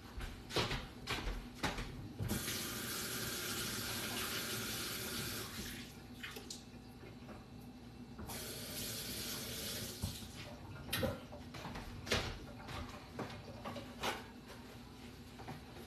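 Kitchen faucet running into the sink for about four seconds, then again for about two seconds, with scattered clicks and knocks of items being handled before and after.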